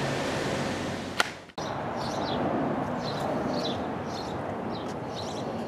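Steady outdoor background noise with one sharp click about a second in, then an abrupt cut to background noise with small birds chirping repeatedly.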